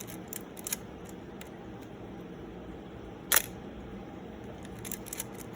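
Canon F-1 SLR firing once, a single sharp shutter-and-mirror click about three seconds in, with a few faint small clicks from the camera being handled before and after.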